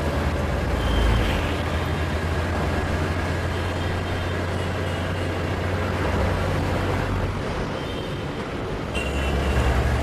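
City bus engine running with a steady low drone and road noise while the bus drives. The drone eases off for a moment near the end, then picks up again.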